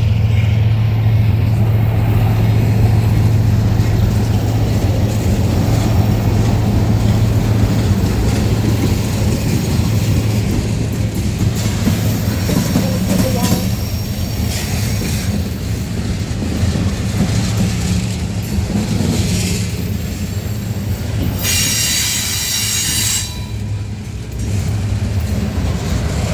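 Freight cars of a CSX train rolling past at a grade crossing: a steady rumble of steel wheels on rail. Near the end a brief high-pitched wheel squeal cuts in.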